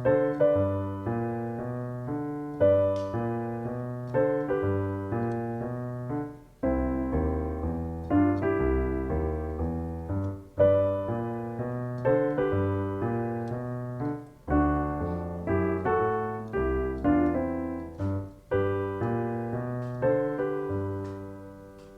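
Piano playing a blues piece in G major at a steady beat: a walking bass in the left hand under two-note harmonies (double stops) in the right. The final chord dies away near the end.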